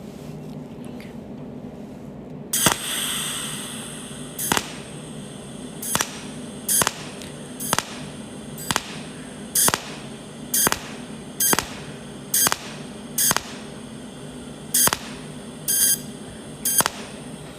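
Cold-welding machine firing a run of sharp, snapping weld pulses, about one a second, during continuous pulse welding, over a low steady machine hum.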